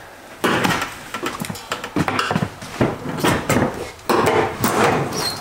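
Curved sheet-metal ceiling panel of a school bus being pried off its ledge with a screwdriver: irregular metallic scraping, clanking and rattling as the panel edge works over the little metal lip it rests on.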